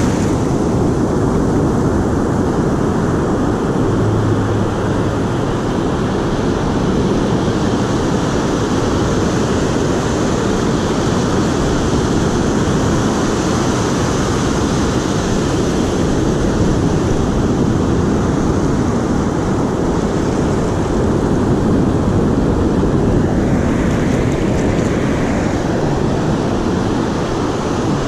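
Surf washing up the beach, mixed with wind buffeting the microphone: a loud, steady noise that is heaviest in the low end.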